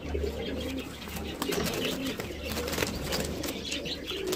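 Domestic pigeons cooing softly, with scattered feather rustles and small scuffs from a pigeon being handled.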